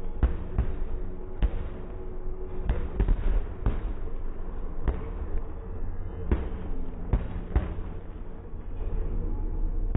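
Aerial fireworks shells bursting in irregular succession, deep bangs about once a second over a steady rumble.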